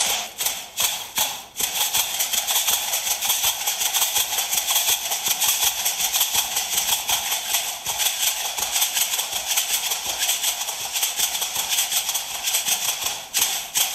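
Stomp-dance shell shakers, the pebble-filled leg rattles worn by women dancers, shaken in a rapid rhythm as the dancers step. There are a few separate shakes at first, then a dense, continuous rattle that stops at the end.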